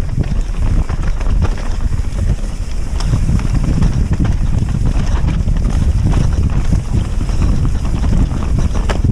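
Wind buffeting the camera's microphone during a fast mountain-bike descent on a rough singletrack, with tyre rumble and frequent clicks and knocks from the bike rattling over the ground.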